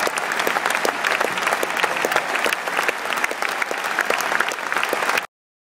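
Large stadium crowd applauding, a dense patter of many hands clapping, which cuts off abruptly near the end.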